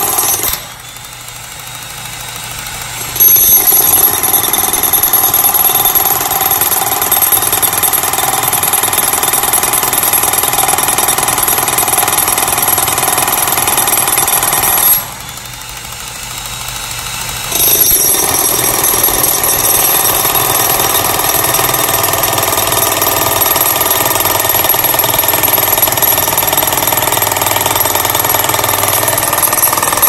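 Pneumatic jackhammer pounding its chisel point into a concrete slab, a loud, continuous hammering that stops twice for a couple of seconds, about a second in and again about halfway through, before starting up again.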